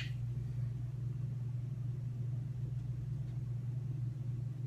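A steady low hum runs throughout, with a brief sharp click right at the start.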